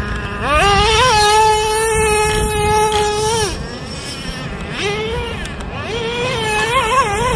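Traxxas Slayer's TRX 3.3 nitro two-stroke engine revving hard: it climbs about half a second in, holds a steady high-pitched drone at full throttle for about three seconds, then drops off and rises and falls in short throttle bursts.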